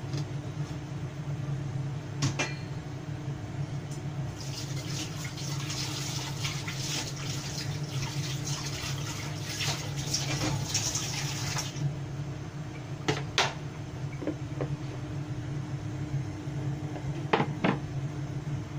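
Baby squid adobo simmering in a covered frying pan: liquid bubbling and sizzling under the glass lid, with a dense crackling sizzle for several seconds in the middle. Under it runs a steady low hum, and a few sharp ticks come about two seconds in, twice near thirteen seconds and once near the end.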